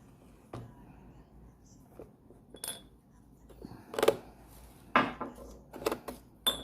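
A series of clinks and knocks as the parts of a new drip coffee maker are handled and set down, hard pieces tapping against each other about once a second. The loudest knocks come about four and five seconds in.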